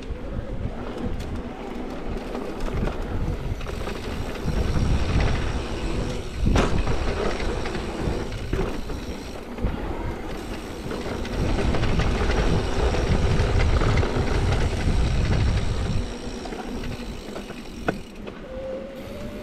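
Mountain bike descending a dirt bike-park trail: steady rumble of tyres and rushing air with the bike rattling over the rough ground. It grows louder twice. A sharp knock comes about six and a half seconds in and another near the end, from hits on the trail.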